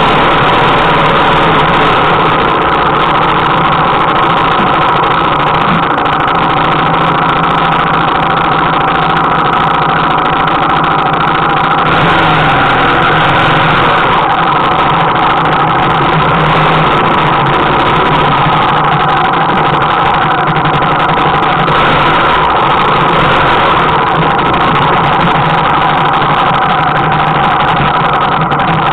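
Trail motorcycle engine close to the microphone, running steadily at low revs with no big revs up or down.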